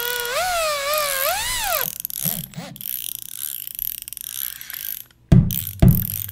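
Logo intro sound effects. A warbling electronic tone with many overtones glides up and down in pitch for about two seconds. Then comes a stretch of hissy mechanical clicking and whirring, and near the end a run of heavy, evenly spaced thuds about twice a second begins.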